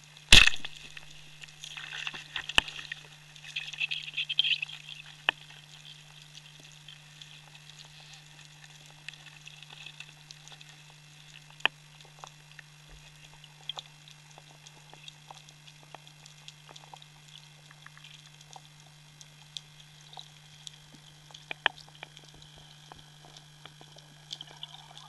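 Speargun firing underwater: one sharp, loud crack about half a second in, followed for a few seconds by a flurry of clicks and rattles, then scattered single clicks over a steady low hum.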